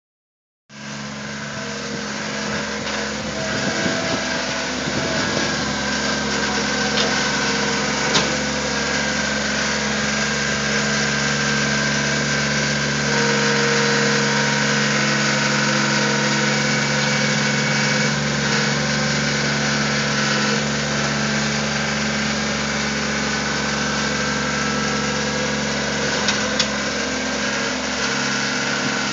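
Skid steer loader's engine running steadily at a constant speed, with a few brief sharp clicks or knocks.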